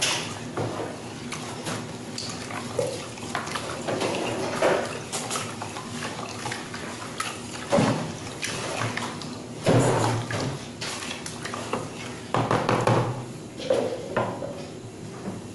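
Wooden spoon stirring a thin milk-and-egg batter in a plastic bowl: liquid sloshing with irregular knocks and scrapes of the spoon against the bowl, and a few louder knocks in the second half.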